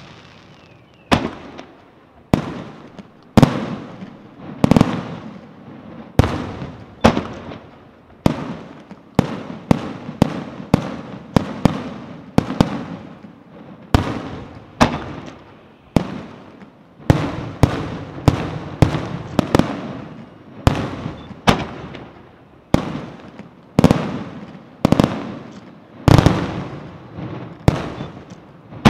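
Aerial firework shells bursting one after another in a steady barrage: a sharp bang about every second, sometimes two close together, each dying away before the next.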